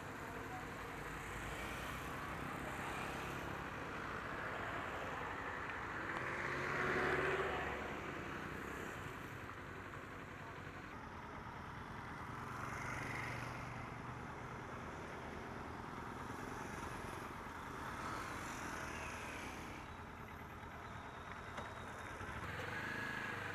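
Slow motorcycle and tricycle traffic heard from a motorcycle riding at low speed: a steady blend of small engines and road noise, with one louder vehicle passing about seven seconds in.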